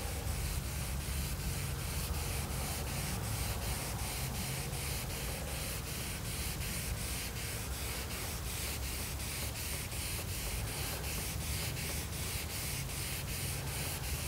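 Hand wet sanding of a painted car hood with a soft foam block and a pre-moistened Trizact disc: a steady rasp of back-and-forth strokes, about two to three a second, some twenty strokes (ten passes) in all. The instructor hears uneven pressure in it, the block diving on its edges.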